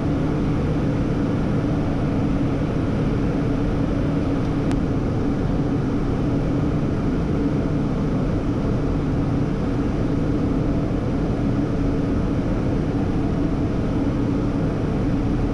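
Steady cockpit noise of a Hawker 800XP business jet in flight: rushing air and the drone of its engines, with a low steady hum underneath.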